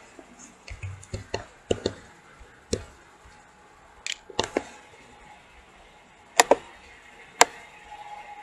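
Computer mouse button clicks, sharp and irregular, about a dozen, including a quick pair about six and a half seconds in.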